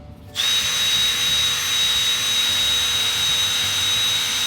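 Power drill spinning a 320-grit flex hone to size a new rocker arm bushing: a steady high whine with hiss. It stops briefly at the start and picks up again about half a second in.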